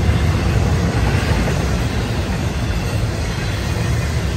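Florida East Coast Railway freight train of double-stack container cars rolling past at speed, a steady, deep rumble of wheels on the rails.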